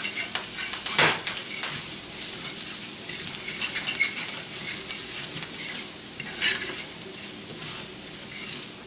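Shallots, cracked black peppercorns and thyme sizzling in butter in a frying pan, stirred with a utensil that scrapes and clicks against the pan, with one sharp knock about a second in.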